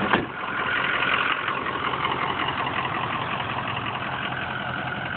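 The 6.0 Power Stroke V8 turbodiesel of a 2003 Ford F-350 idling steadily, with a single sharp knock at the very start.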